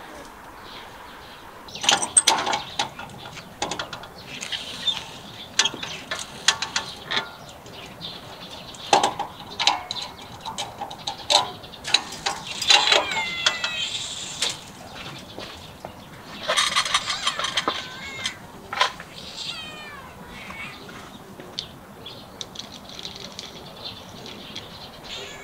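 Cat giving short, high, falling mews now and then, amid scattered clicks and taps.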